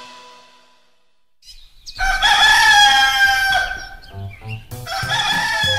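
Rooster crowing twice: a long crow sliding down in pitch about two seconds in, and a second one starting near the end, as light background music with a steady beat comes in.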